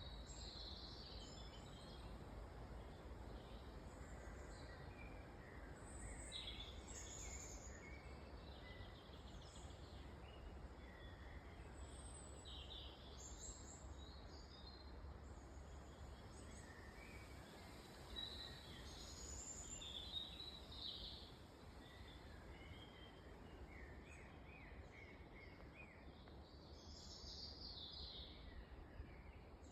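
Faint woodland birdsong: scattered bird calls and chirps from several birds, over a low steady rumble.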